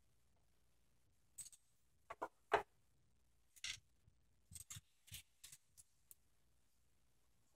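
Loose plastic Lego bricks clicking and clattering against each other and the table as a hand picks through a pile of pieces. About a dozen short, sharp clicks come in uneven clusters, the loudest about two and a half seconds in.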